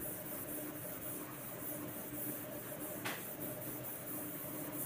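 Whiteboard duster rubbing marker off a whiteboard: faint wiping over a steady hiss and low hum, with one brief louder swipe about three seconds in.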